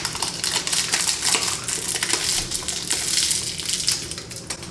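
Crinkling of a shiny candy wrapper being unwrapped by hand: a dense run of small crackles that thins out near the end.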